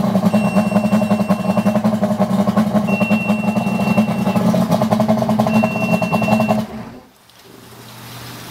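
OMC outboard engine running while the VRO2 oil-injection warning horn beeps, about a second on every two and a half seconds. This is the no-oil alarm, set off because the oil line is disconnected. The engine is switched off about seven seconds in.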